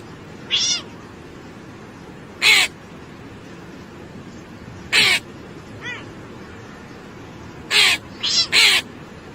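An animal giving short, harsh calls, singly every couple of seconds, then three in quick succession near the end.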